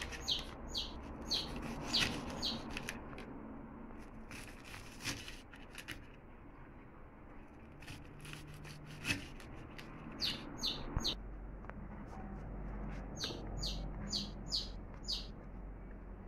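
A small bird chirping in quick runs of short, high chirps, at the start, about ten seconds in and again near the end. Between them come a few sharp taps of a knife chopping an onion on a plastic cutting board.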